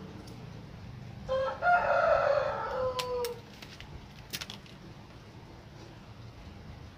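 A rooster crowing once, a pitched call about two seconds long starting just over a second in and ending on a falling note, over a low steady background rumble. A few sharp clicks follow.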